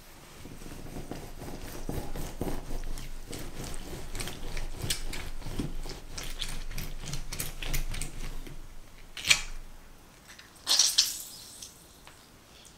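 Half a lemon twisted and squeezed on a ridged glass citrus juicer: wet crackling and squelching of the pulp and rind grinding against the glass cone. Two short, louder squishes come near the end.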